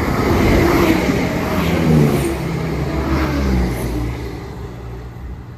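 Class 168 diesel multiple unit passing through the station without stopping: its diesel engines and wheels on the rails rise to a peak as it draws level, then fall in pitch and fade as it runs away.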